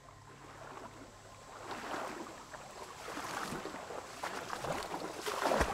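Shallow creek water sloshing and splashing around the legs of someone wading, starting faint and growing louder after about a second and a half. A low thump comes near the end.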